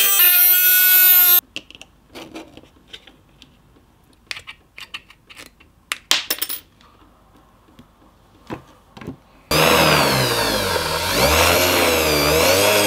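A corded rotary tool with a small cutting disc whines as it cuts through a thin metal spray can, and stops abruptly about a second and a half in. Then come scattered light clicks and snips as tin snips trim the cut sheet. About three seconds before the end the rotary tool runs again, its pitch rising and falling.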